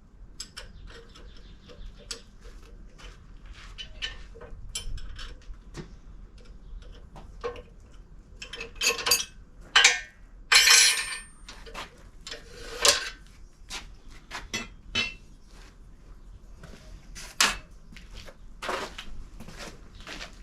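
Workshop handling noise: light clinks and knocks of metal tools and steel tubing being moved about. Several louder clanks come in the second half, with a rattling scrape lasting about a second, about ten seconds in.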